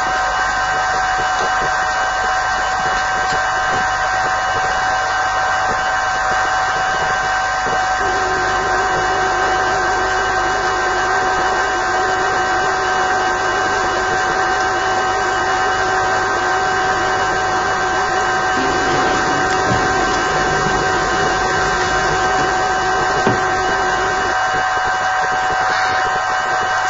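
Steady loud hiss with a constant hum of several steady tones running through it. A faint held low tone sits underneath from about eight seconds in until about twenty-four seconds.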